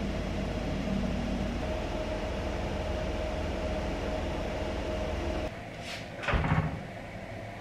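Steady low room hum with a faint thin tone, which cuts off about five and a half seconds in. About a second later come two quick knocks as a kitchen dishwasher door is pulled open.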